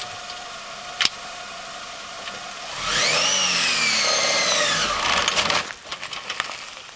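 Manual Honda Accord's engine idling, then revved up about three seconds in; the revs sag as the clutch takes up and the engine stalls about a second before the end, followed by a few knocks and clicks.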